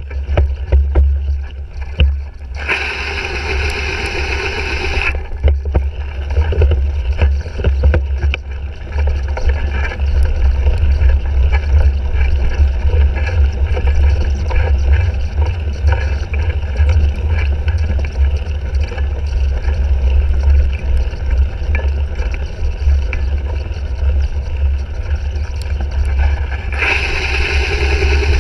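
Wind buffeting the microphone of a bike-mounted GoPro while a cyclocross bike is raced over rough ground, a heavy low rumble with frequent rattles and knocks from the bike. A brighter hiss rises twice, for a couple of seconds each, once near the start and again near the end.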